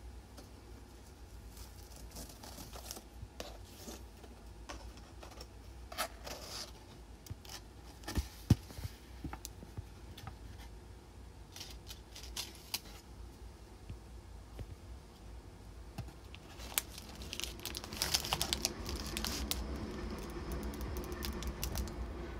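Tissue paper and a cardboard gift box being handled: rustling and crinkling with a few sharp taps, the crinkling densest near the end.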